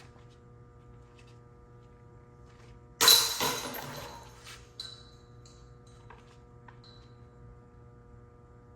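A putted disc golf disc hits the chains of a basket: one sudden metallic crash and jingle about three seconds in, ringing and dying away over a second or two, over a steady low hum.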